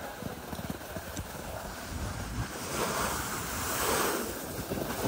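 Skis sliding over packed snow, with wind buffeting the microphone. A scraping hiss from the skis builds from a little past halfway and swells near the end.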